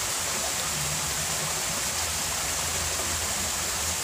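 Small rocky stream rushing over stones: a steady hiss of flowing water.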